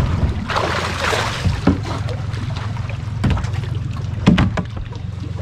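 A boat motor hums steadily while a flathead catfish is netted beside an aluminium boat. Water rushes and splashes about a second in, then come a few sharp splashes or knocks.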